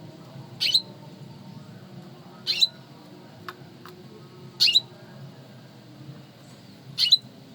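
Male canary giving four short chirps, about two seconds apart, with two faint clicks between the second and third.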